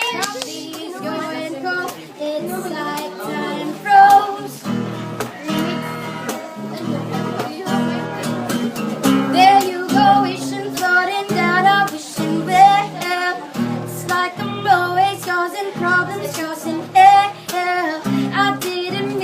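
A girl singing to her own acoustic guitar accompaniment, the guitar chords steady beneath a wavering melody line.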